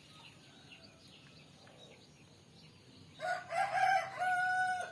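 Rooster crowing once, starting about three seconds in: a few short notes, then a long held final note. Faint small-bird chirps sound in the background.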